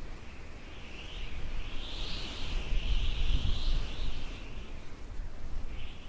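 Outdoor ambience: wind buffeting the microphone with an uneven low rumble, under a high, hissy chorus that swells and fades, strongest in the middle.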